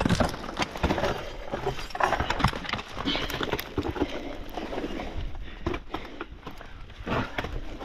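Metal climbing gear clattering and scraping against rock: a run of irregular knocks and clinks.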